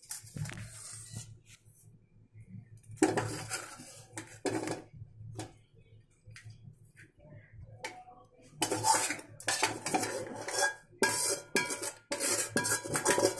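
A steel slotted spoon scraping and knocking against a metal pan as cooked potato filling is scooped out onto a plate. The clatter comes in two spells, a short one a few seconds in and a longer one through the second half.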